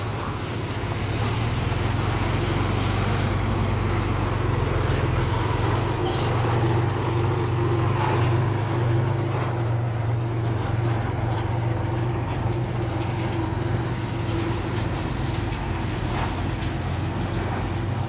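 Diesel engine of heavy earthmoving equipment running steadily under load, a deep hum that builds over the first couple of seconds and then holds.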